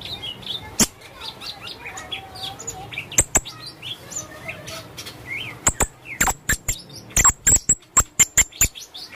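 Blue-crowned hanging parrot (serindit) calling: thin, high chirps and short twittering notes mixed with sharp clicking chips. The clicks come in a quick run of about four or five a second in the second half.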